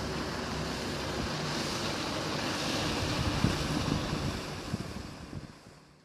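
Steady rush of wind and waves, with low gusts of wind buffeting the microphone, fading out over the last second or so.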